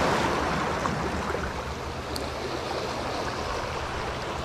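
Small sea waves washing in over the rocks of a breakwater: a steady rush of surf that eases off slightly.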